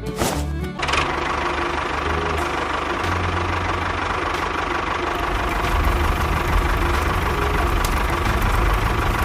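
A machine's motor running steadily at an even pace.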